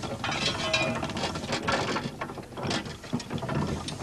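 Steam traction engine in steam, its gearing and motion clanking and rattling with many irregular knocks.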